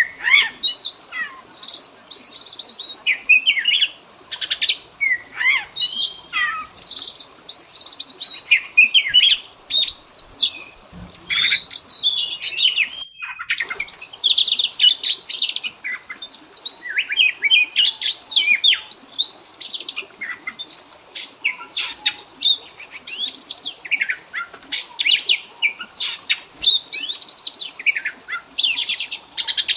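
Oriental magpie-robin singing a rapid, varied song of chirps, whistles and trills, packed with phrases copied from other birds. A brief drop-out about thirteen seconds in.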